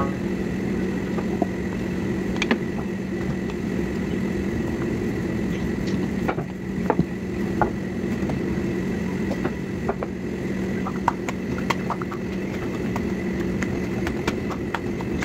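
Steady mechanical hum, with scattered light taps and knocks from roti dough being worked by hand and with a rolling pin on a kitchen counter.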